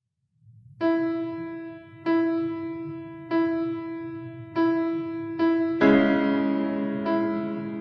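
Electronic keyboard in a piano voice playing a slow, quiet intro: the same single note struck about every second and a quarter, each left to ring and fade, then fuller chords with lower notes joining from about six seconds in.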